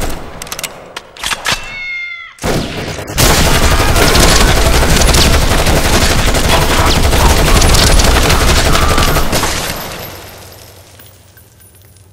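Several AR-style rifles firing together in a long continuous volley of rapid shots for about six seconds, fading out near the end. Before it, a few scattered shots and a brief wailing cry.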